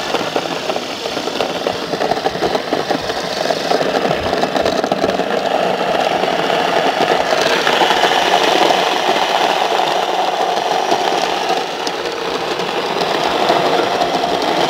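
Prestige electric grain grinder with granite grinding stones running steadily, milling grain into flour.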